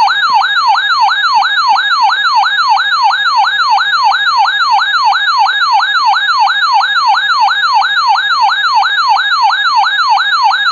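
Electronic siren tone sweeping rapidly up and down, about three and a half times a second, sounding as the attention signal of an emergency weather alert.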